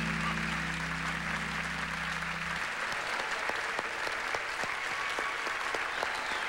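Studio audience applauding over the band's last held chord, which cuts off about two and a half seconds in; the clapping carries on after it.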